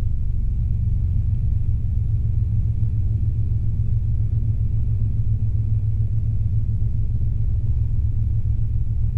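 Robinson R22 helicopter's engine and rotors running steadily under power in the cabin, a constant low rumble with a faint high whine, as the helicopter recovers from a practice autorotation into a climb.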